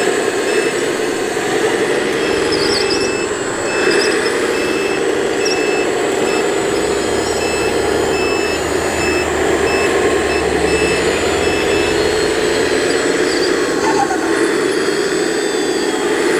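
Radio-controlled model construction vehicles running, their electric drive motors whining steadily. For several seconds in the first half there is an evenly spaced electronic beeping like a reversing alarm, and a low hum joins in the middle.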